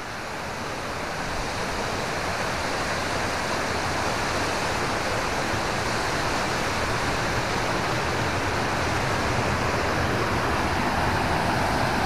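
Steady rush of falling water from a tall waterfall with a small flow, growing gradually louder.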